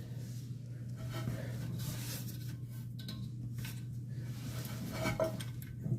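Faint scraping and a few light clicks as a wrench turns the nuts on a toilet's tank-to-bowl bolts, over a steady low hum.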